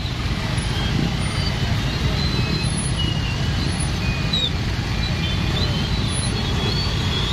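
Many motorcycle and car engines idling and creeping along in a traffic jam on a muddy road, a steady dense rumble. Scattered short high-pitched tones come and go over it.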